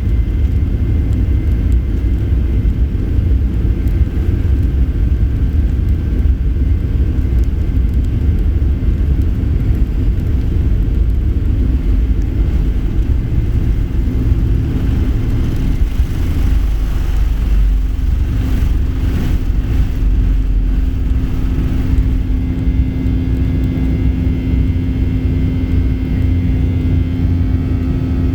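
Boeing 737-800 cabin noise from a forward window seat: its CFM56-7B engines and the airflow make a loud, steady low rumble with a few steady engine tones. A steady hum sets in about halfway, and the rumble swells for a few seconds soon after.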